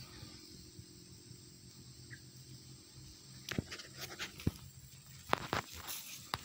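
Footsteps crunching over dry, dead grass stalks on bare soil, starting about halfway through at roughly one step a second, over a faint steady low hum.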